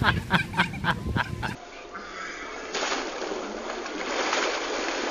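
A voice laughing in quick repeated bursts, then water splashing and spraying as a dog slides down an inflatable water slide into its shallow pool.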